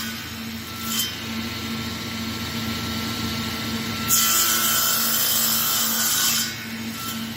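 Table saw running with a steady motor hum and blade whine. About four seconds in, the blade cuts through a piece of wood for about two and a half seconds.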